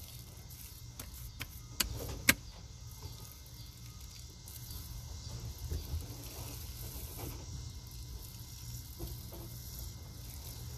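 A hand squeezing and kneading thick wet powder paste, with soft squishing. A low rumble of distant thunder runs underneath, and two sharp clicks come about two seconds in.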